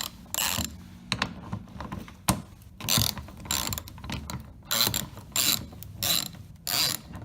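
Ratchet wrench with a 10 mm socket clicking in repeated short bursts, back-stroke after back-stroke, as a bolt is loosened.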